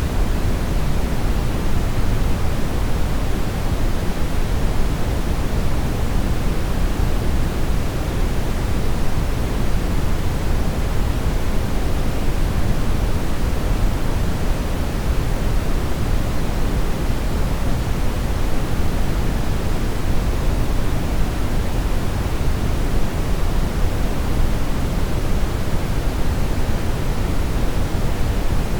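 Television static: a steady, even hiss of noise with no signal, heavier in the low end, unchanging throughout.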